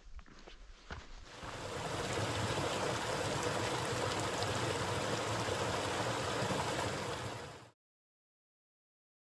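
Footsteps on a dirt trail for about a second, then a small rocky mountain stream running steadily. The stream cuts off abruptly to dead silence near the end.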